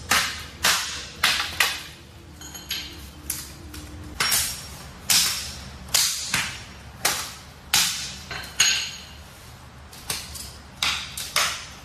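Hatchet chopping dry wooden boards into kindling: a run of sharp chops, a little over one a second and irregularly spaced.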